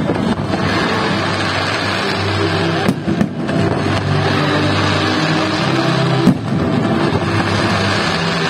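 Fireworks display with music: a couple of sharp bangs, about three seconds in and again about six seconds in, over a dense steady rush of noise, with music playing throughout.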